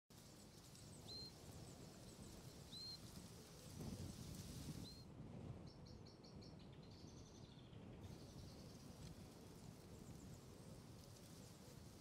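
Faint outdoor ambience with distant birds calling. A short upswept chirp repeats three times, about a second and a half apart, then a quick run of repeated notes and a brief warble follow about six seconds in, over a low steady hiss.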